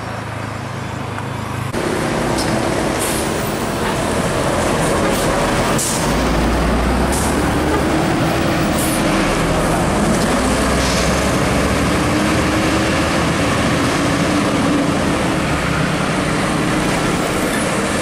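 Large tour bus on a Mercedes-Benz OH 1626 chassis driving past close by, its diesel engine running loud and low under load, with road noise and several short hisses. No horn melody stands out.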